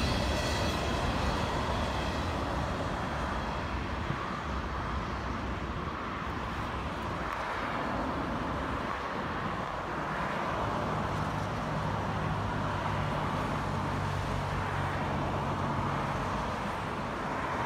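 Steady rumble of rolling vehicles, with a low engine hum joining about ten seconds in and fading near the end.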